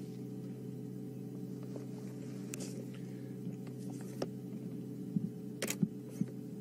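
Steady low hum of an idling vehicle engine, with a few short faint clicks and taps in the second half.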